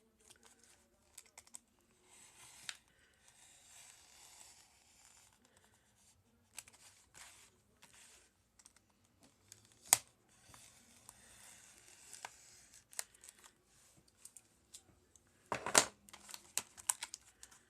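Pocket-knife packaging being torn open and handled: crinkling and tearing with scattered clicks and snaps. There is a sharp snap about ten seconds in and a louder burst of crackling and snapping near the end.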